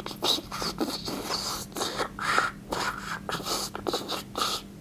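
An iPhone 7 giving off its 'hissgate' electronic noise: an irregular scratchy crackle with short chirps over a faint steady hum. It is linked to the processor working hard.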